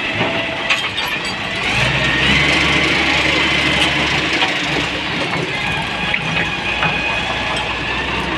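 Ford tractor engine starting about two seconds in, then running steadily, with a few scattered knocks.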